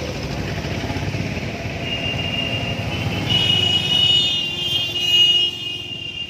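Motorcycle engine running amid city street traffic while riding slowly. A steady high-pitched tone comes in about two seconds in and grows louder toward the end.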